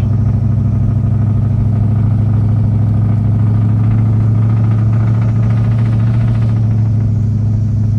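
Car engine exhaust through newly fitted MagnaFlow mufflers, heard from inside the cabin while driving: a loud, steady low drone.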